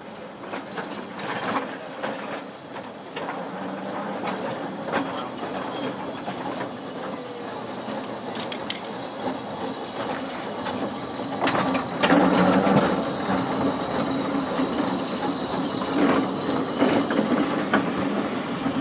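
Narrow-gauge electric tram running past close by, its wheels clicking and clattering over the rails, with a louder clatter about twelve seconds in. A steady high whine runs through the second half.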